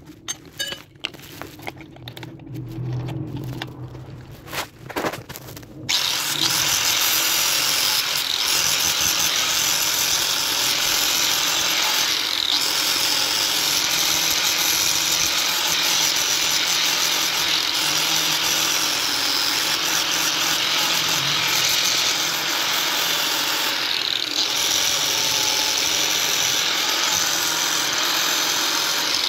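Handling clicks and knocks, then, about six seconds in, an angle grinder with an abrasive disc starts and runs steadily, grinding the knife's handle and steel tang, with a couple of brief dips as the disc comes off the work.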